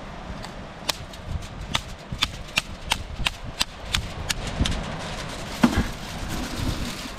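A knife cracking the shell of a mud crab: a quick run of about a dozen sharp cracks and taps, roughly three a second, then a single duller thump a few seconds later.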